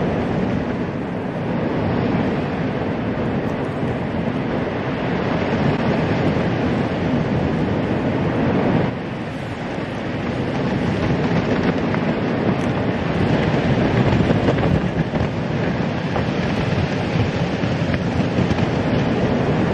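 A steady, loud rushing noise with a rumbling low end and no clear pitch or rhythm. It drops abruptly about nine seconds in, then builds again.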